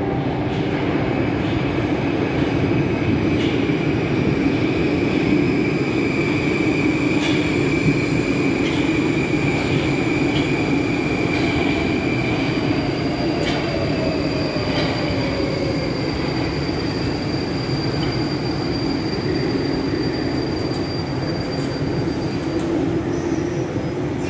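A Moskva-2020 (81-775/776/777) metro train running into the station and braking to a stop, with a steady rumble of wheels on rail. Its electric traction drive gives a high whine that glides down in pitch about halfway through as the train slows.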